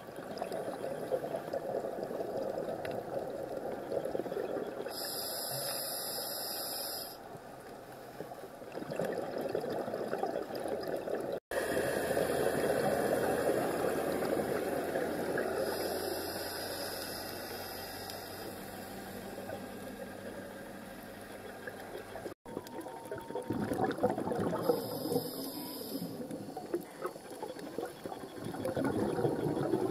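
Underwater rushing noise that swells and fades over several seconds, the sound of a scuba diver's exhaled bubbles, with a higher hiss about every ten seconds.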